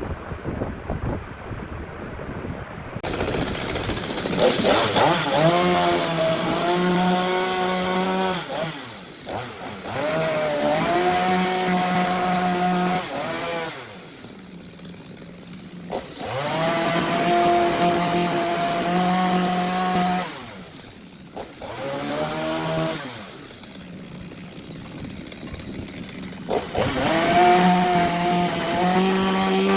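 Chainsaw cutting into a burl log in repeated bursts. About five times the engine revs up, runs steady under load for a few seconds, then drops back between cuts.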